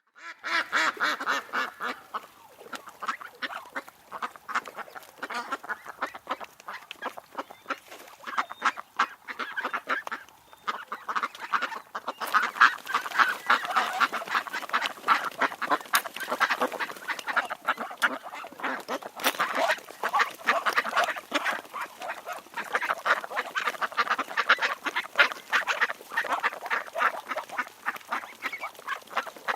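Ducks quacking without pause, with many short calls overlapping.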